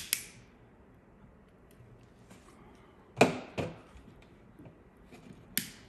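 Small side cutters snipping spot-welded nickel strip tabs off the end of an 18650 lithium-ion cell: sharp snaps, a quick pair at the start, a louder pair about three seconds in, and one more near the end.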